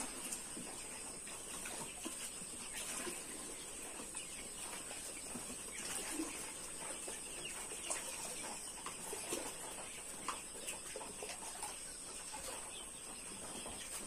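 A flock of broiler chickens clucking and calling, many short calls overlapping. About eight seconds in, water splashes once as a plastic dipper is poured into a tub.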